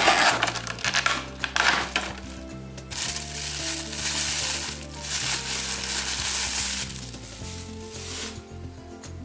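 Clear plastic bag crinkling as hands pull it off a vinyl figurine: crackly rustling in the first two seconds, then a longer stretch of loud crinkling from about three to seven seconds that dies away about eight seconds in. Soft background music underneath.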